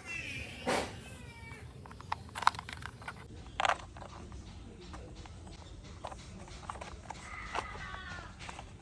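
Plastic clicks and knocks as wheels are pressed onto a toy mixer truck, three of them sharper than the rest. Two short high calls with a falling pitch come in, one at the start and one near the end.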